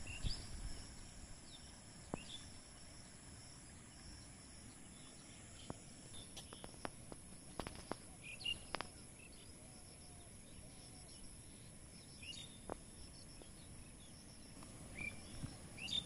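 Quiet outdoor nature ambience: a steady high-pitched drone of insects, with short bird chirps now and then and a few sharp clicks, most of them in the middle.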